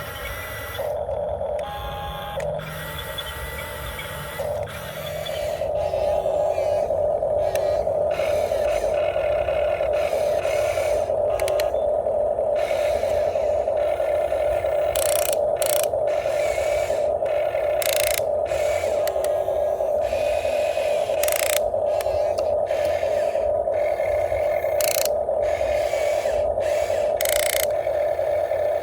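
Huina 1592 radio-controlled excavator's small electric motors and plastic gearboxes whining, intermittent at first and then a steady whine from about five seconds in, with several brief sharp clicks.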